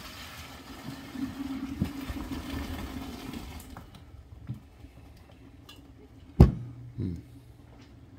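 Pasta being drained from its cooking pot: a rushing pour of water for the first three and a half seconds, then a loud sharp knock about six seconds in and a smaller one just after, as the pot is handled.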